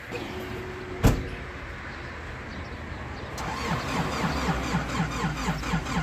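Zamyad pickup truck's engine being cranked by the starter, a fast even chug of about four pulses a second that begins a little past halfway. A single sharp knock, like a door shutting, comes about a second in.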